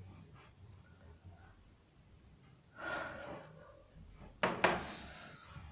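A boy's heavy breath out, like a gasp or sigh, about three seconds in. A moment later come two sharp knocks of handling noise, the loudest sounds, over faint room noise.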